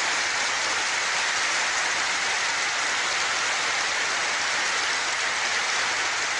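Audience in a large hall applauding steadily, a dense even patter of many hands clapping.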